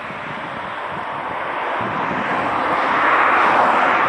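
Boeing 737-700's CFM56-7B turbofan engines at takeoff thrust, the jet noise growing steadily louder as the airliner rolls down the runway toward the listener.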